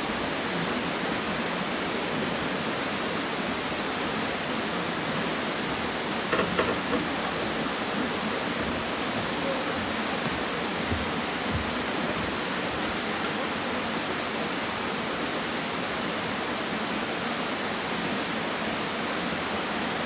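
Mountain stream flowing over rocks, a steady rush of water. A few brief, slightly louder splashes about six and a half seconds in.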